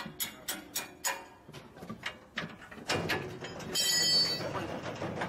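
Light metal clicks and knocks, several a second, then a louder stretch of metal scraping and rattling with a brief high-pitched ring about four seconds in, as the steel frame and cutter parts of a walking-tractor reaper are handled and fitted.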